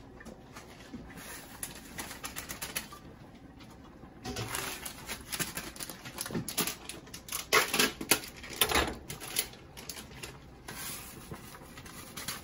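Foil soup-mix sachets crinkling and rustling as they are opened and the dry mix is emptied into a pot. The sound comes in clusters of short crackles, busiest after a few seconds in.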